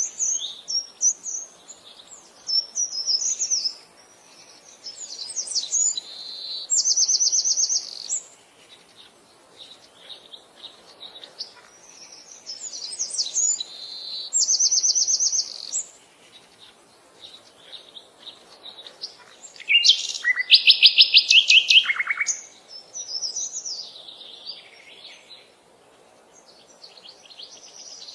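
A songbird singing high-pitched, varied phrases broken by short pauses. Several phrases end in a fast even trill, and the loudest, longest phrase comes about two-thirds of the way in.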